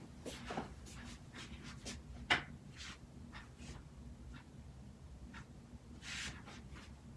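Chiropractic manual adjustment: hands handling and rubbing on the patient, with scattered small clicks, one sharp crack a little over two seconds in, and a brief rustle near the end.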